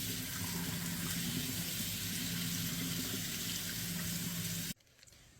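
Water running steadily at the kitchen sink as the clogged dishwasher air gap is being cleaned out, with a steady low hum underneath; it all stops suddenly near the end.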